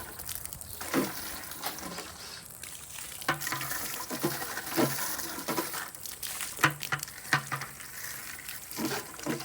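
Water splashing and sloshing in an animal's water bucket as it is scrubbed and rinsed out, with irregular knocks and scrapes against the bucket.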